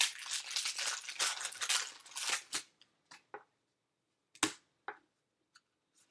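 Foil wrapper of a pack of baseball cards being torn open and crinkled, followed by a few sharp clicks and snaps as the stack of cards is handled, the loudest about four and a half seconds in.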